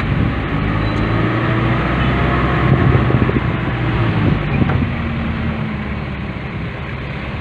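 A motor vehicle's engine running at low speed while the vehicle drives slowly, building up in the first few seconds and easing off after about five seconds.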